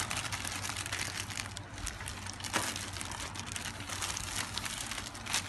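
Crinkling of a thin plastic food-prep glove and a plastic bowl, with rustling and a few sharper clicks, as pounded green rice (khao mao) is scraped out of the bowl into coconut milk.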